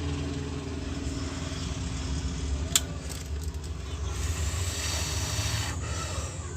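Steady low rumble of road traffic, with a single sharp click about three seconds in and a hiss rising from about four seconds in.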